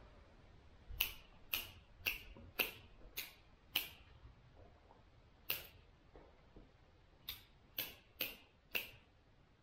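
Hand pruners snipping the low side branches off the butt of a spruce seedling: eleven sharp snips, a quick run of six about half a second apart, a single one, then four more in quick succession.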